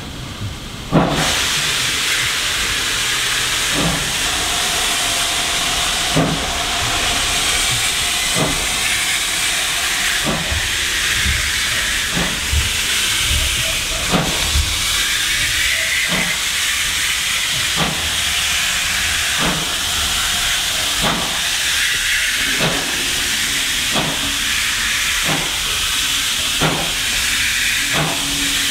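Steady loud hiss of escaping steam from the steam locomotive hauling the train, heard from a carriage window, starting about a second in. Under it, regular clicks of the carriage wheels over rail joints come gradually closer together as the train gathers speed.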